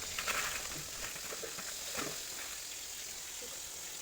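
Steady sizzle of food frying in hot oil in a pan.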